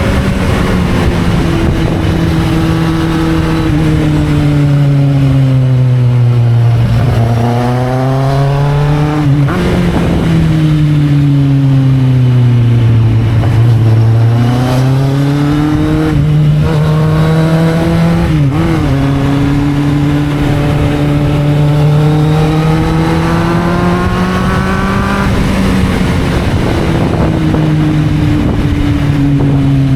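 Kawasaki Z750's inline-four engine heard on the move. Its pitch climbs under acceleration and drops sharply at each of several gear changes, easing down in between, over a steady rush of noise.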